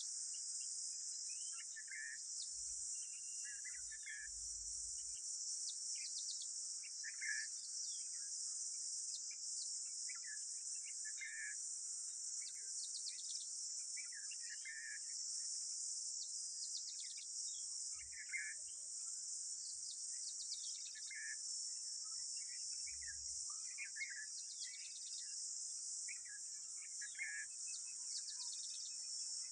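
Steady, high-pitched chorus of insects such as crickets, with short bird calls repeating every second or two beneath it.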